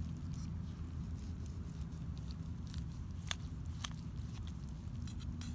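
A few faint sharp clicks and light handling noises, spaced irregularly, over a steady low rumble.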